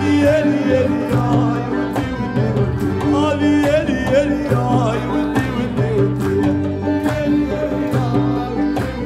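Live rai music from an accordion, acoustic guitar, bass guitar and hand drum, with a male voice singing the melody over a steady drum beat.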